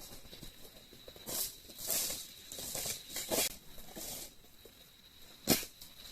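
Rustling, scuffing and light knocks of things being handled and moved, with one sharp knock about five and a half seconds in, over a faint steady high whine.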